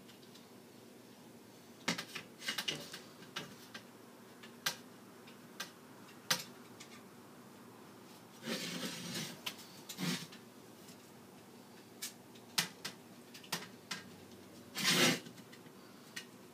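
Loose steel spokes and nipples of a freshly laced hub-motor wheel clicking and rattling against each other and the aluminium rim as they are handled and finger-tightened: scattered metallic clicks and taps, a longer rattle past the middle and the loudest clatter near the end.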